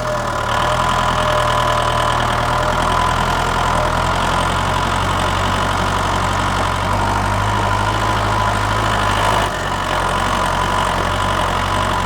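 Small motor-driven DIY mini wheat thresher running steadily, a continuous machine hum with a held whine, briefly dipping about three-quarters of the way through.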